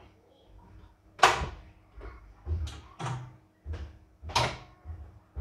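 Computerised embroidery machine giving a series of sharp, uneven clunks as it is run with a heavy-turning drive, the loudest about a second in. The repairer puts it down to a shorted motor being forced to turn.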